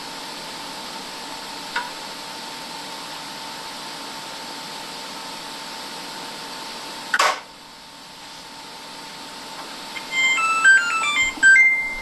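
A front-load washing machine's electronic end-of-cycle tune: a short melody of beeps stepping up and down, ending on a held tone, signalling that the cycle is finished. Before it, a steady hum and a single sharp knock about seven seconds in.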